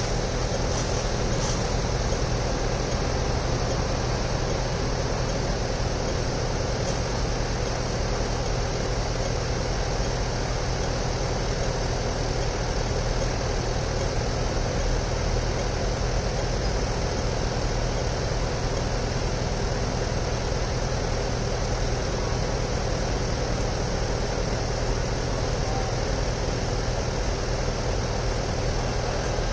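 Steady city street noise: traffic and engines running, with a constant low hum and no distinct events.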